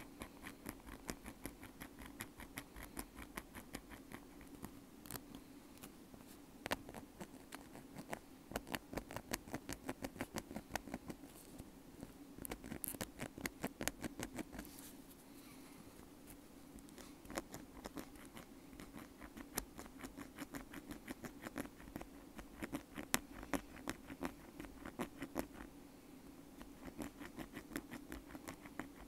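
Bamboo ear pick scratching close to the microphone: rapid little scraping strokes in runs, with brief pauses in between.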